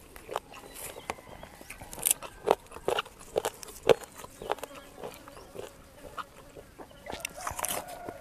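A chicken clucking, with a drawn-out call near the end, over sharp crunching clicks from someone eating and handling food.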